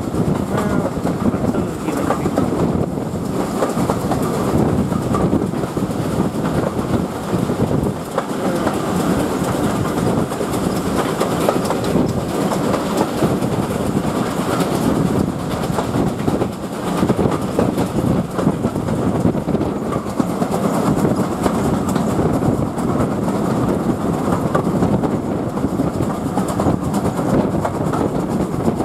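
A train hauled by two GWR steam locomotives, a 7800 Class Manor and a 9351 Mogul, heard from an open carriage window at speed. The coach wheels clatter over rail joints under the steady rush of the moving train.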